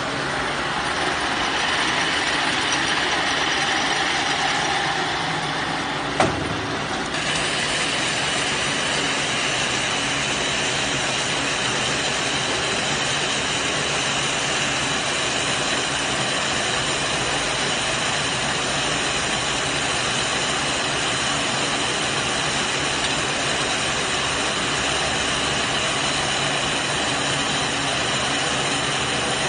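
Silage baler-wrapper machine running steadily, with one sharp knock about six seconds in, after which a steady high whine joins the running noise.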